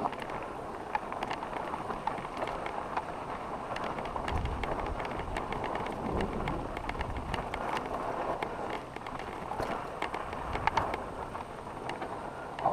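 Mountain bike rolling over a loose, rocky gravel trail: tyres crunching on stones, with frequent short clicks and rattles from the bike over the rough ground and a low rumble around the middle.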